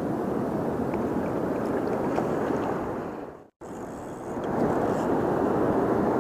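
Steady rushing noise of wind on the microphone mixed with moving river water, with a few faint ticks. A little past halfway the sound fades out to a brief silent gap and then comes back.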